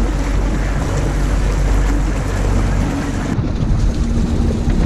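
Suzuki outboard motor running steadily at trolling speed, with wind on the microphone and water rushing past the aluminium hull.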